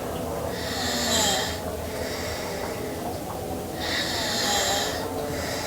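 A sleeping girl snoring, two breaths about three and a half seconds apart, each a rush of air.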